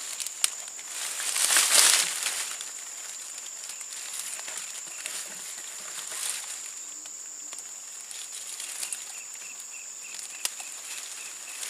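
Rustling and crinkling handling noises, loudest about two seconds in, over a steady high-pitched insect drone. A faint, rapid, evenly pulsed chirping joins near the end.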